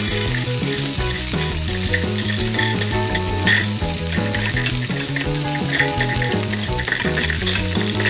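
Steady frying sizzle, a sound effect standing in for stir-frying, with a few light clicks as a wooden spoon stirs plastic beads in a toy wooden saucepan. Background music with steady low notes plays underneath.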